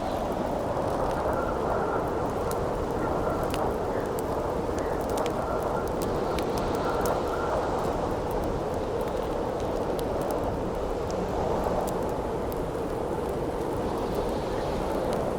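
Campfire crackling with scattered sharp pops over a steady howling wind, with a faint whistling tone coming and going in the wind.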